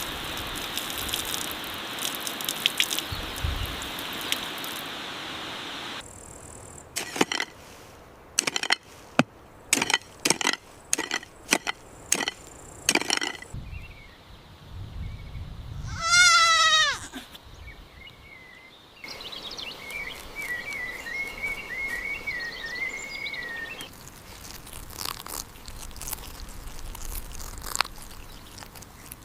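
Farm sounds in a few short scenes: first a steady outdoor hiss, then a run of sharp knocks, then a goat bleating once with a long, quavering cry, the loudest sound here. A thin warbling call follows, and scattered light clicks.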